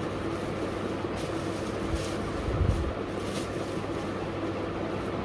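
Steady background hum and noise, with a few brief rustles of dress fabric being unfolded and lifted by hand.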